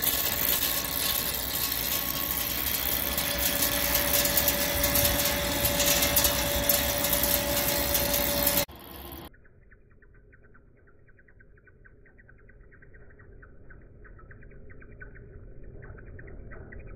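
Heavy CNC lathe turning a forged steel-type workpiece: loud cutting and machine noise with a steady tone through it. About nine seconds in it cuts abruptly to a much quieter, muffled stretch of the machine running that slowly grows louder.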